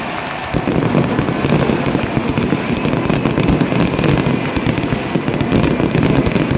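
Stadium fireworks display going off in a dense, continuous run of bangs and crackles.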